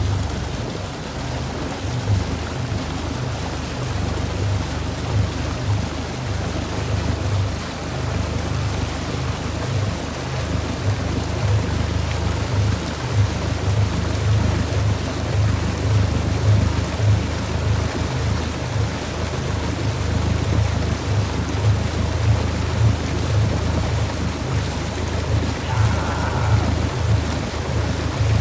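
A motorboat running at a steady speed as it tows a raft, with water churning and wind on the microphone giving a steady low rumble.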